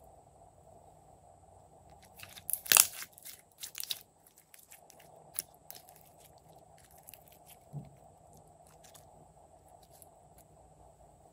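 Clear yellow glitter slime being stretched and handled, giving sticky crackles and small pops. A cluster of louder crackles comes a few seconds in, with scattered single clicks after it.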